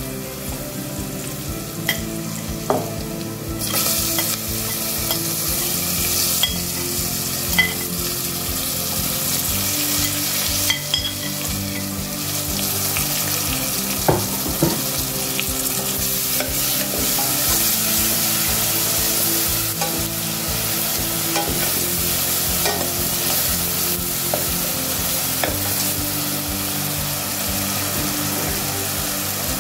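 Onions and spices frying in oil in a pot, sizzling. The sizzle jumps louder about four seconds in, when chopped tomato is tipped into the hot oil. A few sharp knocks of the stirring spoon against the pot come through it.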